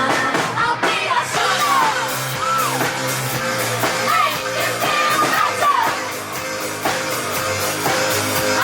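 Live rock band playing, with a lead singer's voice gliding over electric guitar and drums.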